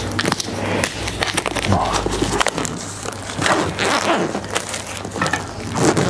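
Crinkling and crackling plastic shrink-wrap and a cardboard box being handled while a Dyson Supersonic hairdryer box is unwrapped: irregular sharp clicks and rustling swishes.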